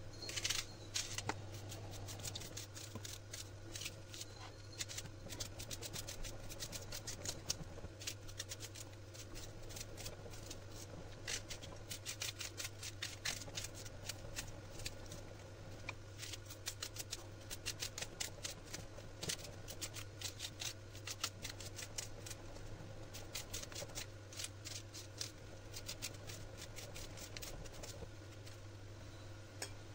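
Kitchen knife slicing red onions held in the hand into lengthwise strips: a long run of quick, crisp cuts through the onion layers, coming in runs with short pauses.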